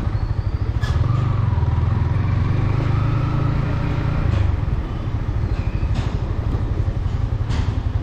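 Yamaha MT-15's 155 cc single-cylinder engine running at low revs through its stock exhaust, a steady fast-pulsing note that eases off slightly a little past halfway.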